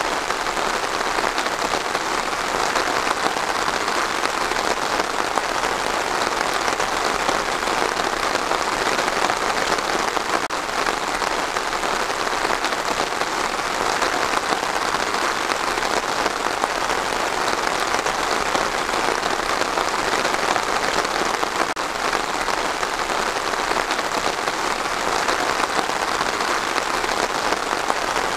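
Steady rain falling: a constant, even hiss that holds the same level throughout.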